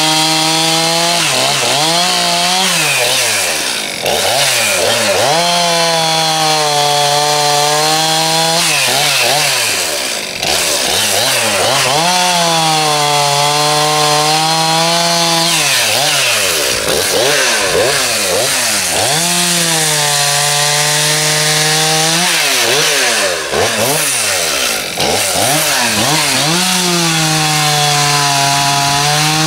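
Two-stroke chainsaw bucking logs into firewood rounds. The engine holds a steady pitch through each cut, with the throttle blipped up and down between cuts, about five cuts in all.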